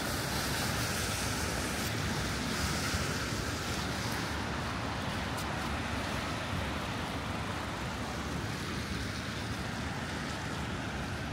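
Steady outdoor rush of wind noise and city traffic, without let-up or distinct events.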